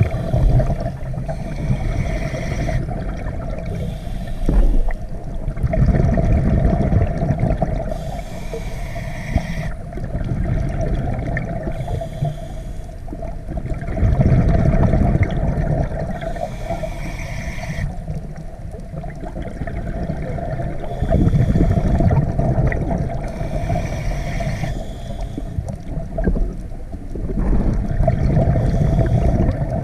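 Scuba diver breathing through a regulator underwater. A hissing inhalation alternates with a low rumbling gush of exhaled bubbles, in cycles several seconds apart, over a steady hum.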